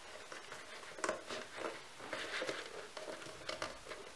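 Faint, irregular rustling and light taps of card stock and cardboard being handled and pressed into place.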